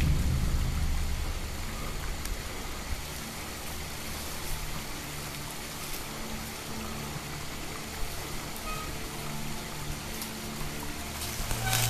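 Enduro motorcycle engine running at low revs, coming and going as the bike is eased down a steep slope, and picking up briefly near the end. Under it, a steady hiss of a running stream.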